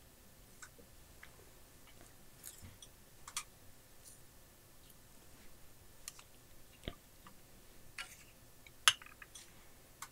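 Faint, scattered clicks and light taps from small electronic parts and hand tools being handled on a workbench, at irregular moments, with a sharper tap about nine seconds in.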